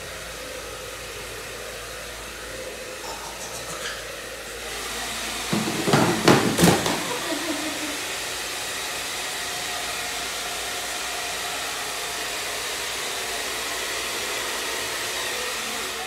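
Handheld electric hair dryer running with a steady blowing hiss that gets louder about four and a half seconds in. A short, loud burst of noise stands out around six seconds in.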